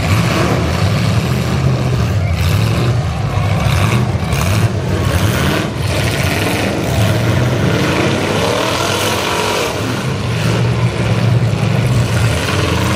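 Several demolition derby cars running at once, engines revving up and down, with a few sharp crashes of car bodies hitting each other.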